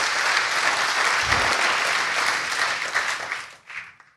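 Congregation applauding steadily, the clapping thinning out and dying away about three and a half seconds in with a few last claps.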